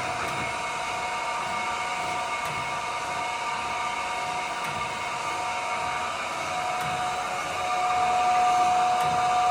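Chevalier FSG-3A1224H hydraulic surface grinder running with its spindle, hydraulics and coolant on, its grinding wheel taking a half-thou down-increment cut on a small part. A steady whine of several tones over a rushing noise, growing louder with one tone strengthening about two thirds of the way through.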